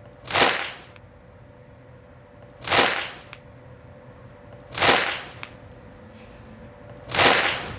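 Foley sound effect made with everyday objects: four short, sharp noisy bursts, each about half a second long, spaced about two and a half seconds apart.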